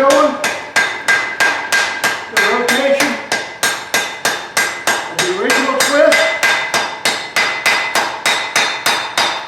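Blacksmith's hand hammer striking white-hot steel on an anvil in a steady run of rapid blows, about three to four a second, with the anvil ringing between strikes: forge welding the end of a twisted angle-iron and bar-stock bundle.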